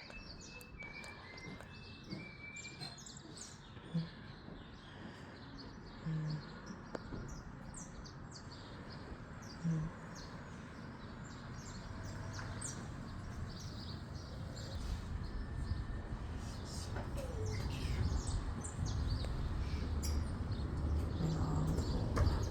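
Many short bird chirps over steady outdoor background noise, with a low rumble building steadily louder through the second half.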